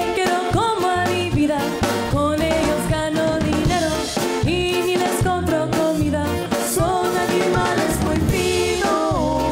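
A woman singing a corrido live into a microphone, backed by a band of electric bass, guitars and drum kit keeping a steady beat.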